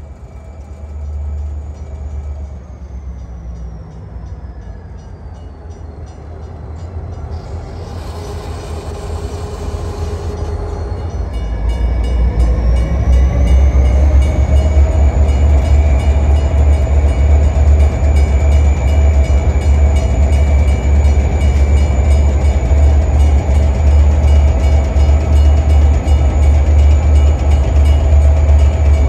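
Diesel-electric freight locomotives (EMD GP39-2s) throttling up. Their engine rumble grows much louder from about eleven seconds in, and a whine rises in pitch with it, then both hold steady and loud. A short hiss comes a few seconds before the rise.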